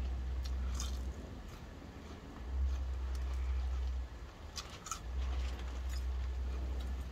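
Close-up eating sounds: chewing fast food, with a few short crisp clicks of food and packaging being handled, over a low rumble that comes and goes in three stretches.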